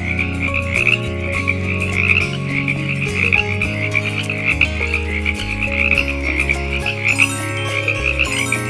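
A chorus of frogs croaking, a dense run of fast pulsing calls, over background music with low notes that change every second or so.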